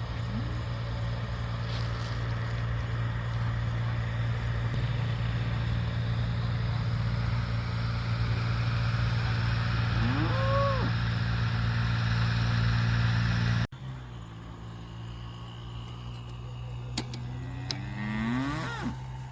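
A cow mooing, a rising call about ten seconds in and another near the end, over an engine running steadily. The engine sound stops abruptly a few seconds before the second moo.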